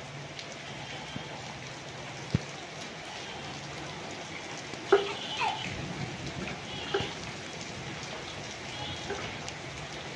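Steady rain falling on a brick-paved courtyard and garden plants. A few brief sharp sounds cut through near the middle, the loudest about five seconds in.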